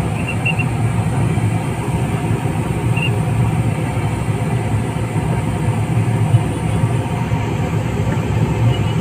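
Steady low rumble of street traffic noise, with a few short high peeps just after the start and one about three seconds in.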